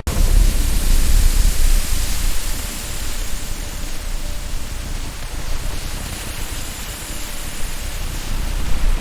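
A loud, steady rushing noise with a low rumble beneath it, cutting in suddenly at the start.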